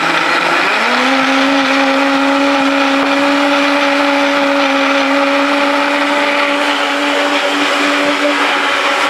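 Countertop blender running at full speed, liquidising apple, celery and other green-juice ingredients with water. Its motor pitch climbs in the first second, then holds steady.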